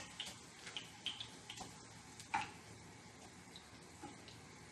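Hot oil faintly sizzling around potato chunks frying in a pan, with scattered sharp pops and the clicks of metal tongs picking the pieces out; the loudest click comes about two and a half seconds in.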